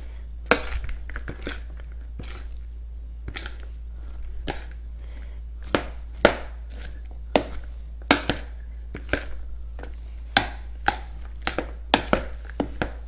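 Metal spoon stirring and tossing a quinoa and vegetable salad in a large bowl: irregular clicks and scrapes of the spoon against the bowl, about two a second.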